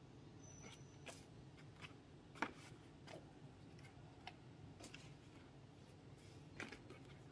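Faint, scattered rustles and light clicks as cut pieces of upholstery material are handled and lifted off a cutting table, with one sharper tap about two and a half seconds in and another near the end. A low steady hum runs underneath.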